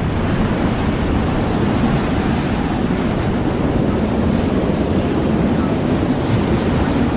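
Steady wind sound effect: an even rush of noise with no clear pitch, heaviest in the low end.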